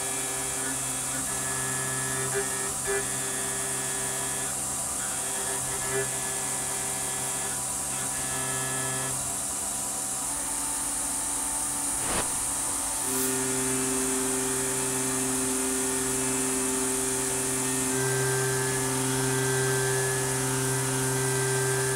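Tormach 770 CNC mill roughing a pocket with a solid carbide end mill: a steady spindle whine under the pitched hum of the cutter. About 12 seconds in there is a sharp tick, and the cutting tone then runs steadier and a little louder.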